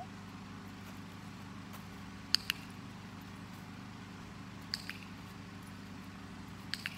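Handheld dog-training clicker clicked three times about two seconds apart, each a quick double click of press and release.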